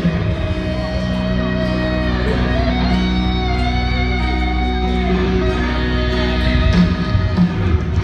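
Rock band sound check heard from outside the venue: amplified electric guitar playing long, held notes over heavy bass.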